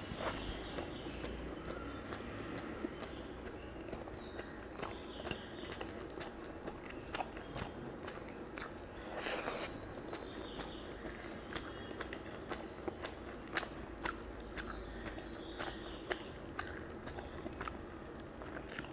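Close-up chewing and lip-smacking of a person eating mutton curry and rice with her fingers, with many sharp wet mouth clicks at irregular intervals.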